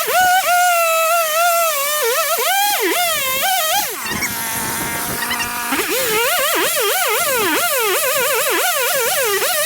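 Chainsaw engine revving up and down repeatedly while cutting, its pitch rising and falling quickly. Around the middle it settles briefly to a steadier, lower note before revving again.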